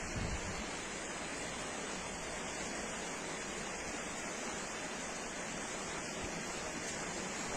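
Fast-flowing river water rushing with a steady, even roar.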